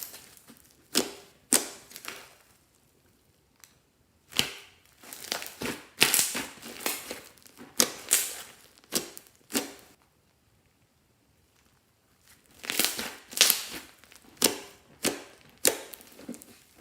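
Crinkling, crunching handling sounds in irregular clusters of sharp crackles, with two pauses of about two seconds.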